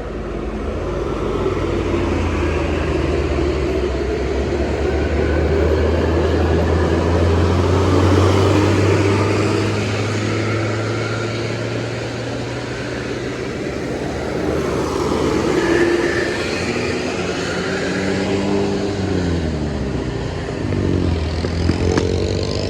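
Heavy diesel bus traffic on a road: a steady low engine drone with tyre and road noise, building to its loudest about eight seconds in. Near the end an engine note falls and then rises again as vehicles pass.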